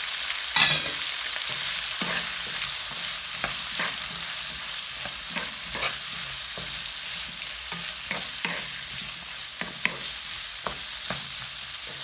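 Diced peppers, peas, pineapple and cooked chicken sizzling in a hot non-stick frying pan while a wooden spoon stirs them, scraping against the pan in repeated strokes, with the sharpest knock about half a second in.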